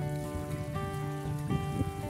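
Background music: held notes that change pitch in steps about every half second, over a steady hiss.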